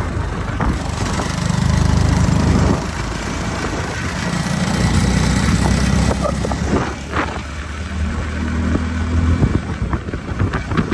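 Motorcycle engine running as the bike rides along a gravel road, its sound swelling and easing several times.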